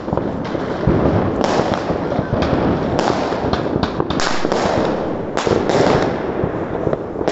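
Fireworks and firecrackers going off all around: a continuous dense crackle of overlapping bangs, with sharper, louder reports every half second to a second.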